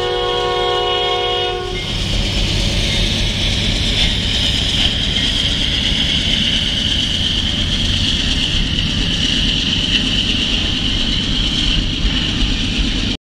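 Diesel freight locomotive's multi-chime air horn sounding, cutting off about two seconds in, then a double-stack intermodal freight train passing: locomotive rumble and wheels on the rails with clickety-clack and a steady high-pitched squeal. The sound cuts off suddenly near the end.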